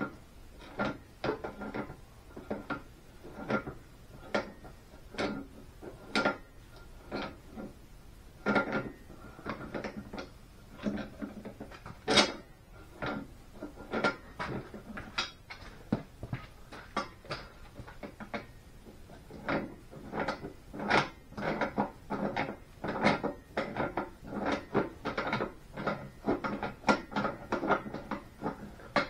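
The steel gland of a mini Kobelco excavator's hydraulic boom cylinder being unscrewed from the barrel by hand and with channel-lock pliers: irregular metallic clicks and knocks, about one or two a second, with one sharper knock about halfway through.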